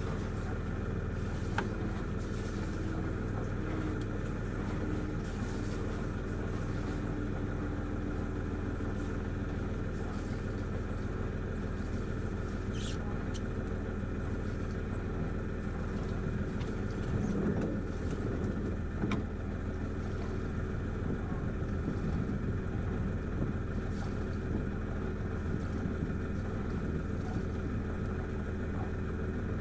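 Sailboat's inboard engine running steadily, with a few brief faint clicks over it.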